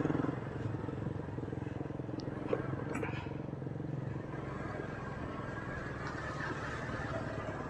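Small motorcycle engine running steadily at low speed while riding along a narrow concrete path, with a couple of faint clicks about three seconds in.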